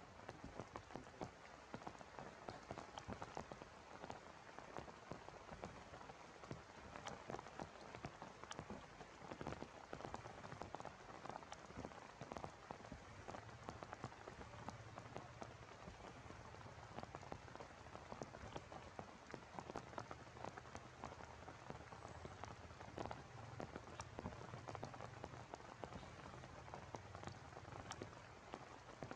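Heavy rain falling steadily, a dense spatter of individual drops ticking over a continuous hiss.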